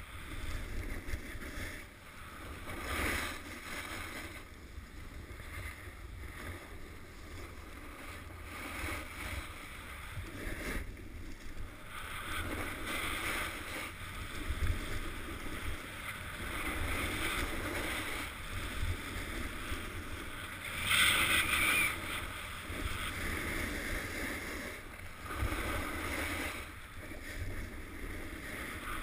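Wind rumbling over an action camera's microphone while skis or a snowboard carve down firm, packed snow, the edges scraping and hissing in swells with each turn. The loudest scrape comes about three-quarters of the way through.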